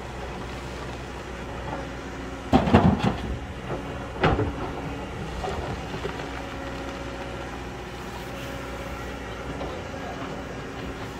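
Excavator diesel engine running steadily while it digs into rocky ground, with loud clattering of rock about two and a half seconds in and again about four seconds in.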